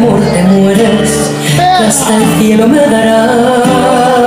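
Spanish-language pop ballad playing loudly, a woman's singing voice over steady instrumental backing.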